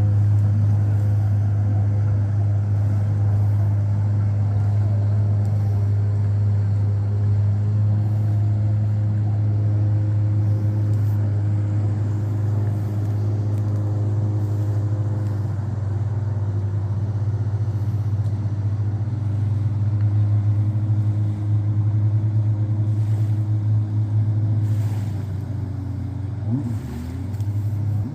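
An engine running steadily at an even speed, giving a loud, deep hum with a few overtones above it.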